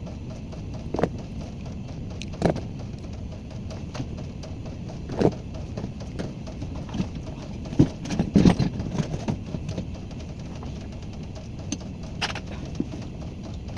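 Scattered clicks and knocks of tools and plumbing fittings being handled during a faucet and supply-hose replacement, over a steady hiss; the knocks cluster about eight seconds in.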